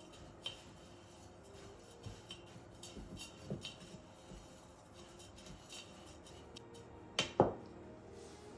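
Dishes and kitchen utensils handled: scattered light clicks and clinks, with two sharper knocks about seven seconds in, over quiet background music.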